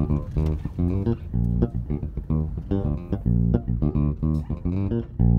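Electric bass playing a solo funk line of short plucked notes, some of them sliding in pitch.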